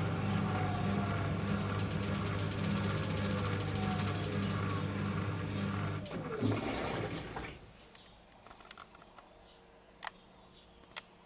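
Miele W1 front-loading washing machine running with a steady hum and light ticking, then its drum motor winds down in a falling whine about six seconds in and the machine goes quiet, with a couple of sharp clicks near the end.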